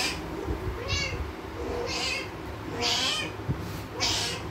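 Female cat in heat calling with short, high meows, about one a second, five in a row. This is heat calling in a spayed cat, which the owner puts down to ovarian remnant syndrome.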